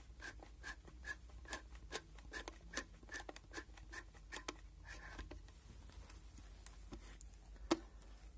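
Film-advance knob of a 1936 Agfa Isolette folding camera being wound, its ratchet clicking about three times a second as the backing paper runs onto the take-up spool. The clicks thin out after about five seconds, and a single louder snap near the end comes as the camera back is opened.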